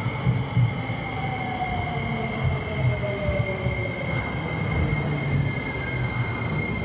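Tsukuba Express electric commuter train pulling into the platform and slowing, its wheels rumbling on the rails. A high steady tone runs underneath, and a whine falls in pitch as the train slows.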